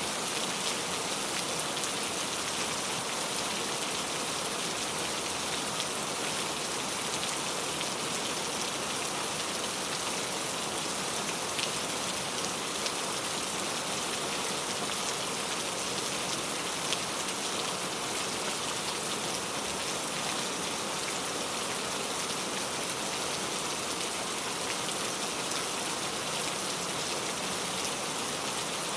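Steady rain falling, with a dense patter of many small drops striking a surface. The sound holds constant throughout, with no thunder.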